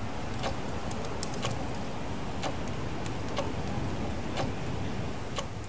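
Wall clock ticking, about once a second, over a steady low background rumble.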